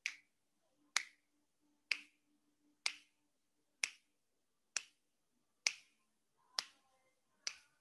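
Finger snaps at a steady pace of about one a second, nine in all, counting out the seconds of a held breath.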